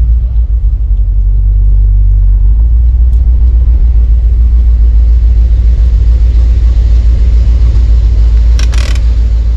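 1971 Corvette's V8 engine running as the car drives, a steady deep rumble, with a brief burst of hiss near the end.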